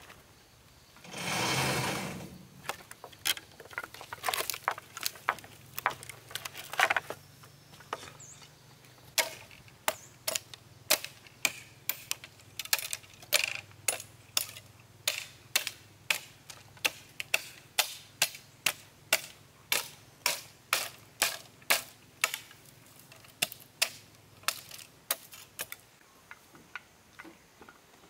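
A brief swish, then a long run of sharp, evenly spaced knocks, about two a second, from hand work on bamboo poles.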